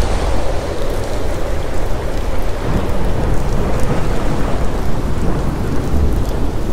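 Thunderstorm: steady heavy rain with a continuous low thunder rumble underneath, the rumble swelling briefly near the end.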